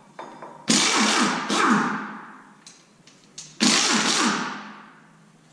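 Impact wrench with a chrome socket fired in two bursts about three seconds apart, each fading away as the tool spins down, undoing the water pump bolts on a 6.0 LS engine.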